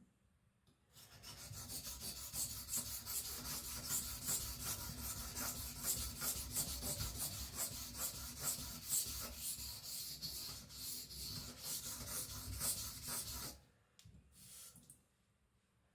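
Carbon-steel (75Cr1) knife blade being stroked quickly back and forth on a sharpening whetstone, a steady run of rasping scrapes that stops about three-quarters of the way through, followed by one brief scrape.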